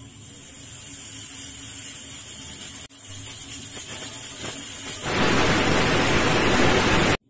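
Tandem pressure cooker's weighted whistle hissing as steam pressure builds, then lifting about five seconds in with a loud rush of escaping steam: the cooker whistling. The sound stops abruptly just before the end.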